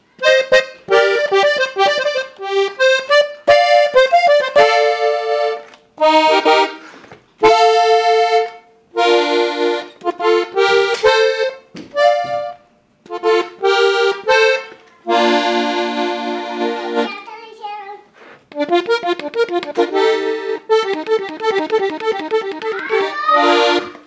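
Parrot button accordion tuned in F, played in short phrases of melody runs and chords with brief pauses between them and a longer held chord about two-thirds of the way through; the playing stops at the very end. The seller says its reeds have no air leaks or bad voices.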